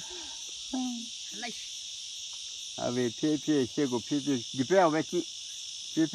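Steady, high-pitched insect chorus droning without a break, with children's voices speaking in short spells about a second in, from about three to five seconds, and near the end.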